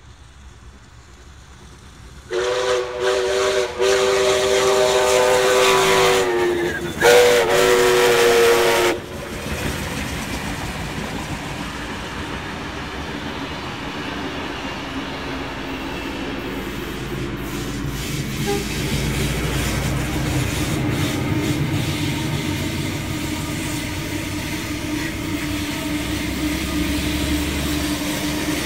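Steam locomotive's chime whistle blowing for about six seconds, a loud chord of several notes with some hiss, broken twice and sagging in pitch before it stops. It is followed by the steady rumble of trains passing, building toward the end.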